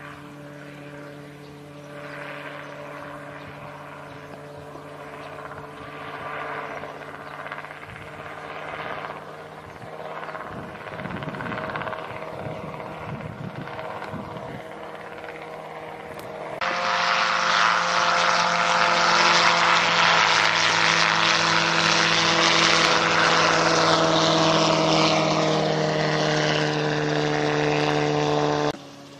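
Homemade ultralight helicopter's engine and rotor running in flight, a steady drone held at one pitch. About halfway through it suddenly becomes much louder and fuller, and later its pitch slowly sinks before the sound cuts off abruptly near the end.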